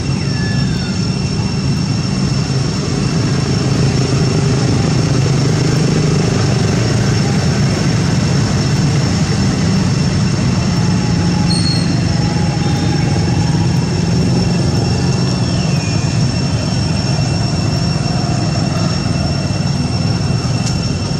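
Steady loud outdoor background noise: a low rumble with a constant high-pitched drone above it, and a few short high chirps.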